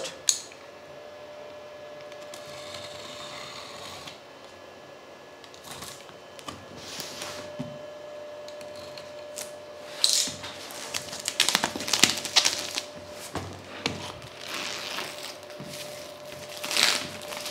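Clear plastic shrink-wrap being torn and peeled off a cardboard box, with irregular crinkling rustles and handling scrapes starting a few seconds in, the loudest near the end. A faint steady hum runs underneath.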